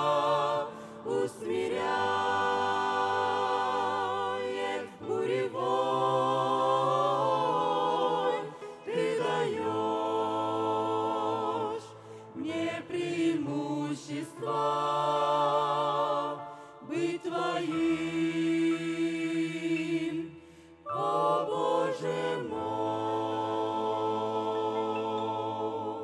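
Small mixed vocal group of women and men singing a slow hymn in harmony through microphones. They hold long notes with vibrato in phrases of several seconds and pause briefly between them. The last note dies away at the very end.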